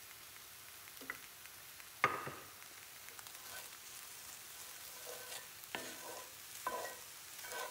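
Cottage pie filling sizzling in a frying pan while a utensil stirs it, knocking and scraping against the pan several times, the loudest knock about two seconds in.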